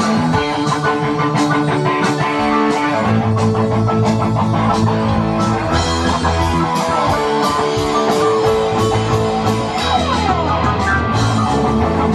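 Rock band playing live: distorted electric guitar and bass guitar over drums, with steady, evenly spaced drum and cymbal hits.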